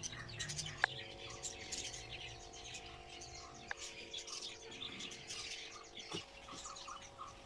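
Small birds chirping and twittering continuously, many short calls overlapping, over a faint steady hum. Two sharp clicks stand out, one about a second in and one about halfway through.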